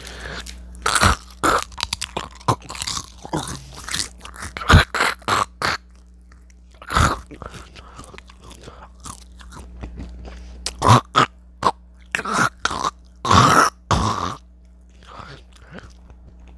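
Chips being bitten and chewed close to the microphone: a run of sharp, uneven crunches, with several louder, longer coughs among them.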